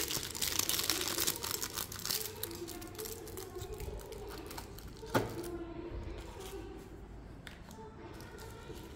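Crinkling and rustling of packaging as boxed lighter sets are handled, busiest in the first few seconds, with one sharp click about five seconds in.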